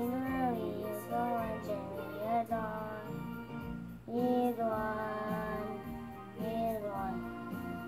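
A song playing: a sung melody over steady instrumental backing, with short breaks between phrases.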